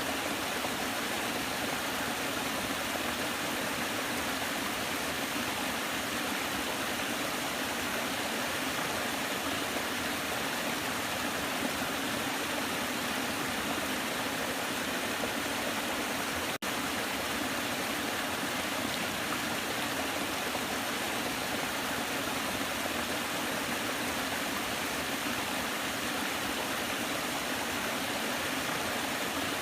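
Waterfall: a steady rush of falling and splashing water, even and unchanging, with a split-second break in the sound about halfway through.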